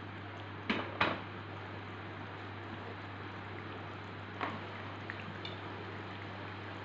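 A metal wok set back down on the grate of a portable gas stove: two sharp clunks about a second in, then a softer knock a few seconds later, over a steady low hum and hiss.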